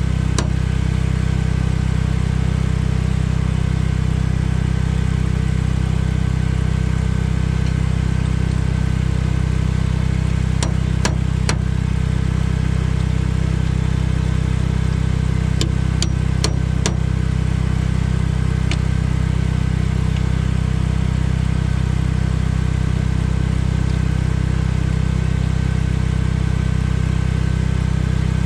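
A small engine running steadily at idle, with a few sharp metallic clicks and taps from hand tools on steel partway through.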